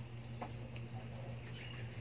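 Nursing kittens giving a faint, short, high squeak near the end, over a steady low hum, with a soft click about half a second in.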